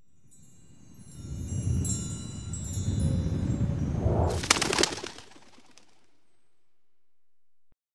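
Sound-designed logo intro: a low rumble swells up under high, twinkling chime tones, then a rushing whoosh with a quick flurry of sharp clicks about four and a half seconds in, dying away by about six seconds.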